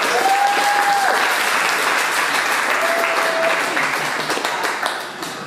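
Audience applauding, with a couple of short held cheers from the crowd; the clapping dies down near the end.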